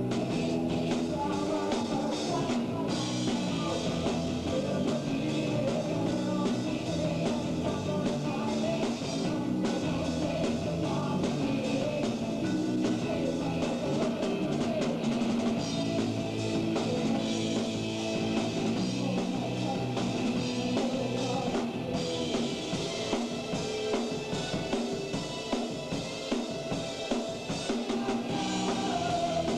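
Rock band playing live: drum kit with bass drum, snare and cymbals driving a steady beat under electric guitar. The cymbals ring out more strongly in two stretches, in the first third and again near the end.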